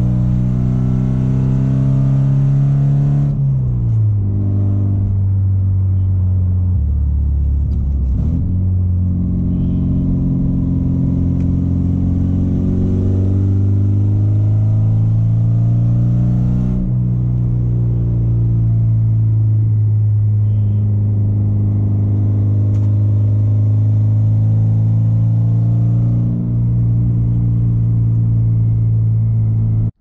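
Porsche 944's four-cylinder engine under way, heard from inside the cabin. Its note falls about three seconds in, climbs slowly for the next dozen seconds under acceleration, drops sharply about halfway through, then holds almost steady.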